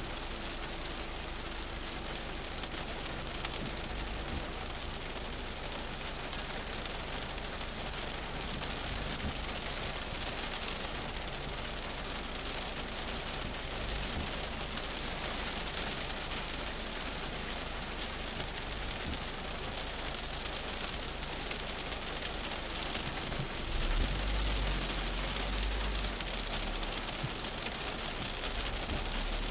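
Heavy rain falling on a car's windscreen and roof, heard from inside the cabin as a steady hiss. A low rumble swells about 24 seconds in and eases a few seconds later.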